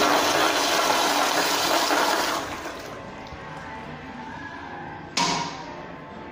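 American Standard Madera flushometer toilet flushing: a loud rush of water that drops off about two and a half seconds in, leaving a quieter trickle as the bowl refills. A sudden short thump a little after five seconds.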